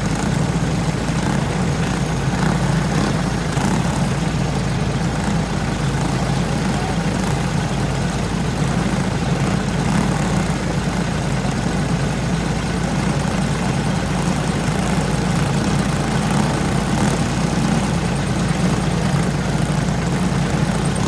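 A field of racing go-karts' small engines idling together, a steady running drone with no revving.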